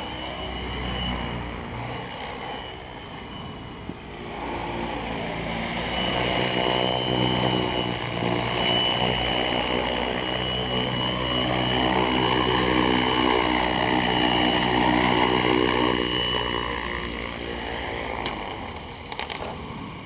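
Funcopter, a small electric RC helicopter, flying close by: a steady electric-motor whine with the buzz of its spinning rotor. It gets louder through the middle, falls away near the end, and a few sharp clicks come in at the very end.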